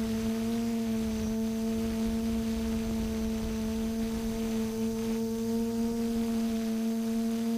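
TBS Discovery quadcopter's motors and propellers giving a steady humming whine at constant throttle, picked up by the camera on board, with low wind buffeting underneath.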